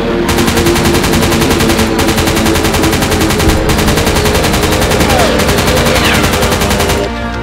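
Machine-gun fire from a WW2 fighter's wing guns, a sound effect: very rapid shots in four long bursts with brief breaks between, cutting off suddenly about seven seconds in. A steady drone runs underneath, and a falling whistle comes near the end.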